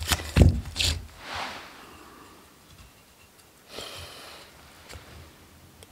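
Knife blade of a Bahco 2449 wrecking knife shaving a split wooden stick into a feather stick: a few dull knocks of the wood on the wooden floor at the start, then short scraping strokes of the blade along the grain, one just under a second in and another about four seconds in.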